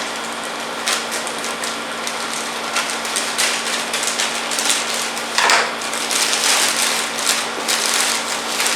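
Scissors snipping through a plastic mailing bag, with the plastic crinkling and rustling in irregular bursts as it is pulled open.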